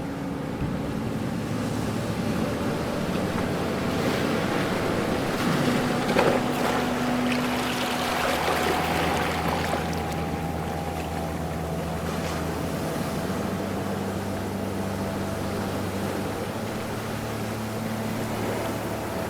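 Ocean waves washing in continuously, swelling to a louder surge about six seconds in, with a low steady hum underneath.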